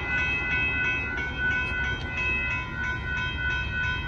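Railroad crossing warning bell ringing steadily at about three strikes a second, sounding because a train is approaching the crossing, with a low rumble underneath.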